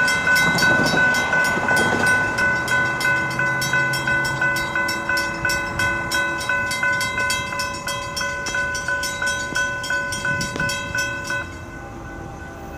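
Railroad grade-crossing warning bell ringing in rapid, even strikes while the flashing lights are on and the gates lower. It cuts off suddenly near the end, once the gates are down.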